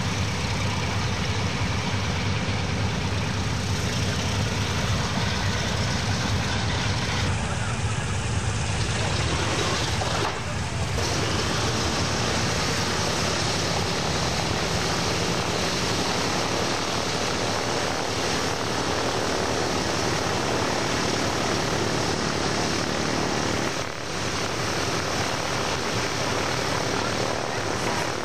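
B-17G Flying Fortress bombers' Wright Cyclone radial engines and propellers running with a steady drone, which dips briefly twice.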